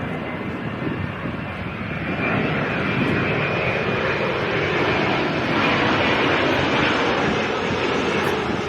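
Jet airliner flying low overhead, its engine noise a dense roar with a faint high whine, swelling about two seconds in and staying loud.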